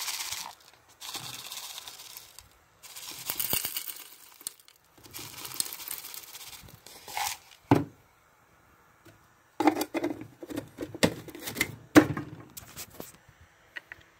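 Small turquoise chips pouring and rattling out of a plastic tub into a coffee grinder's cup, in several short pours. Then a string of sharp plastic clicks and knocks as the tub is set down and the grinder's clear lid is fitted.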